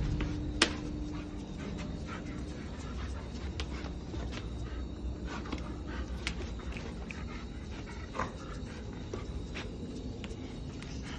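German shepherd panting, with scattered sharp clicks and one loud click about half a second in.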